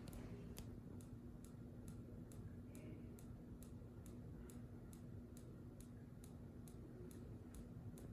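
Minka Aire Volterra ceiling fan running with a faint, regular clicking, about two and a half clicks a second, over a steady low hum.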